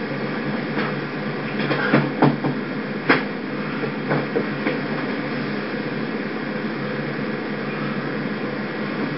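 Steady background hum and hiss, with a few sharp clicks and knocks about two to five seconds in.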